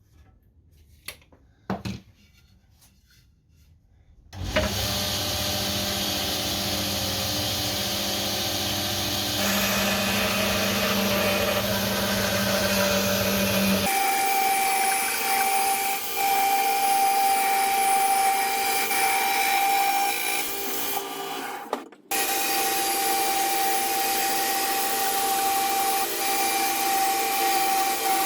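A few light knocks, then an electric woodworking machine starts about four seconds in and runs loudly while cutting hardwood pieces down in width. Its sound changes a few times as the work goes on, with a steady whine in the second half and a brief stop near the end.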